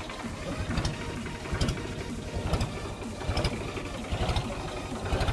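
An engine idling with a fast, even knocking beat, over footsteps on wet ground about once a second.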